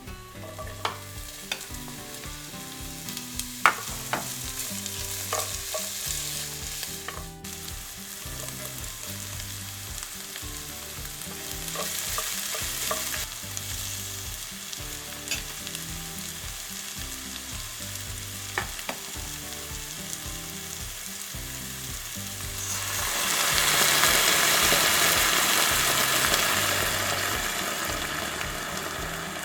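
Food sizzling as it fries in a hot pan, with scattered clicks of a utensil stirring it. The sizzle swells much louder near the end.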